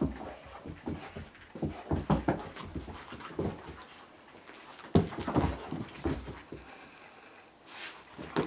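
A dog making close, small noises in uneven bouts of short sounds with quiet gaps between, and a faint thin high tone near the end.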